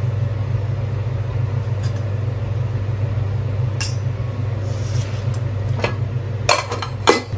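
A steel spoon clinks a few times against steel spice bowls, most clearly twice near the end, over a steady low motor hum.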